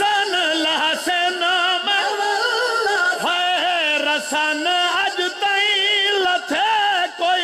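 A man's amplified voice singing a Shia mourning lament (noha), with heavy vibrato and long held notes that slide up and down in pitch.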